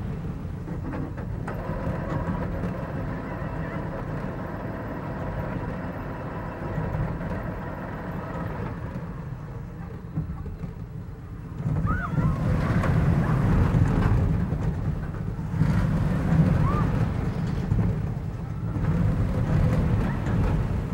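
Roller coaster train running along its track, a steady low rumble with wind on the microphone, growing louder about twelve seconds in, with a couple of brief high squeals.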